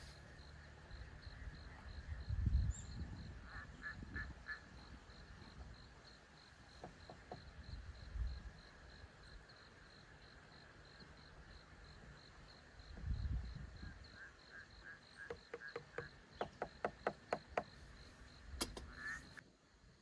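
Night insects chirping in a steady, fast pulse, with a frog croaking in a quick run of calls near the end. A wooden spoon stirring drinks in small metal cups adds a few low knocks.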